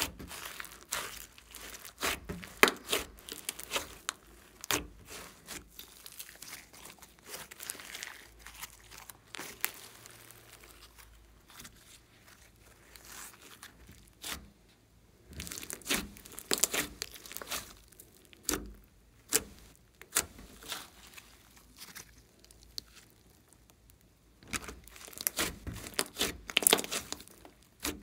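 Slime being squeezed, stretched and pulled apart by hand, giving irregular sticky pops and crackles. They come thick and fast at first and again near the end, sparser and quieter in the middle.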